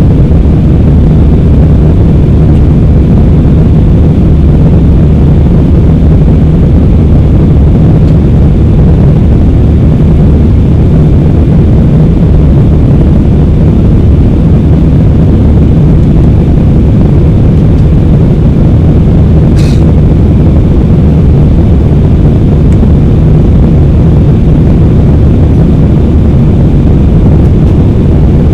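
Airbus A320-200 cabin noise in flight: the steady rush of the jet engines and airflow heard from a window seat, heaviest in the low end. One faint click about twenty seconds in.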